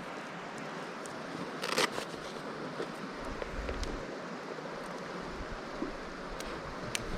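Steady rush of a flowing stream, with a short louder burst about two seconds in and a few faint clicks.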